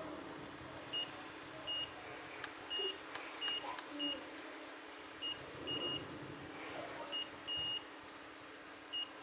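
Multimeter continuity beeper chirping in short, irregular high beeps, about a dozen, as the probes are touched to points on a laptop motherboard while checking it for a short circuit.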